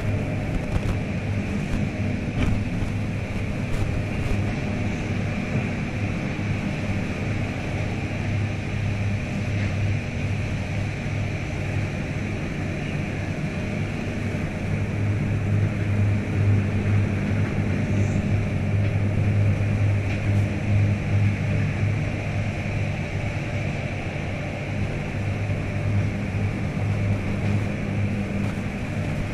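Motorboat engine running steadily, a low even hum that swells a little in the middle.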